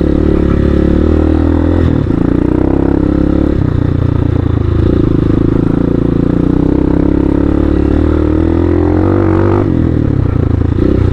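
Hawk 250 dual-sport motorcycle's single-cylinder four-stroke engine running loudly under way. Its note changes a few times as the throttle is opened and closed.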